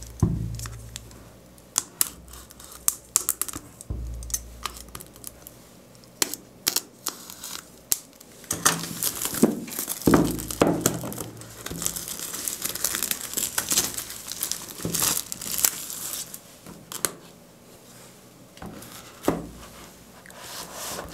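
Plastic shrink-wrap being torn and crinkled off a cardboard box, in dense crackling bursts heaviest in the middle. A few dull knocks come as the box is handled on the table.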